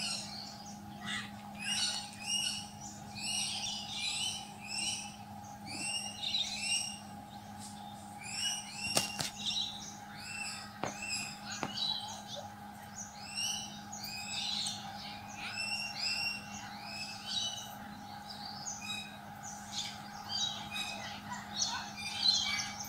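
Birds chirping and calling over and over, short arching calls in quick succession, over a steady low hum. Two sharp clicks come near the middle.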